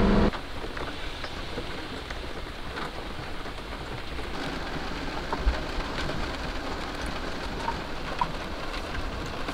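Heavy rain falling steadily, with scattered individual drops heard as sharp ticks and a brief low thump about halfway through.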